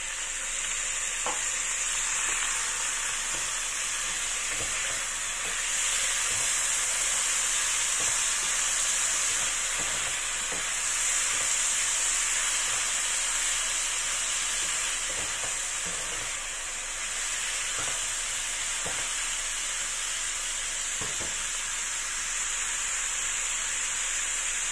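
Sliced bitter gourd sizzling in a nonstick frying pan, a steady hiss that grows louder about a second in as a splash of water hits the hot pan. Light scrapes and taps come and go as a plastic spatula stirs it.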